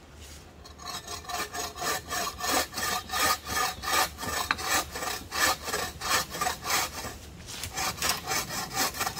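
Hand saw cutting dead poplar wood in quick, even back-and-forth strokes, about three a second, starting about a second in, with a brief pause near the end before the sawing resumes.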